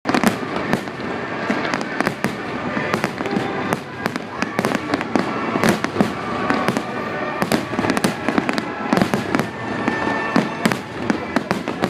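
Fireworks display: a dense, continuous run of sharp bangs and crackles from shells bursting in quick succession.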